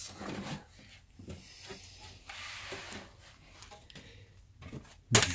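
Hands working inside an open desktop PC tower: scattered clicks, knocks and rubbing against the metal case and its parts, with a short hiss a little over two seconds in and a loud knock near the end.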